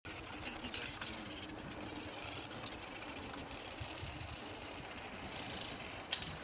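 Raspberry Pi Cat wheeled robot driving over a metal drain grating, its wheels and caster rattling steadily on the grate bars along with its drive motors, with a sharp click near the end.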